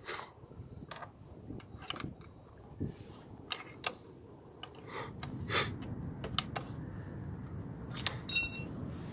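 Metal key clicking and tapping in the oil-sump drain plug of a 1959 Nimbus motorcycle as the plug is worked loose to drain oil that has water in it. A string of light clicks ends with a brief, ringing metal clink about 8.5 seconds in, the loudest sound.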